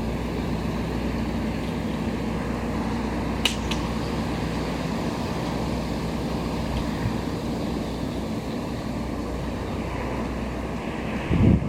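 Steady low drone of ship engines running, with a single sharp click about three and a half seconds in.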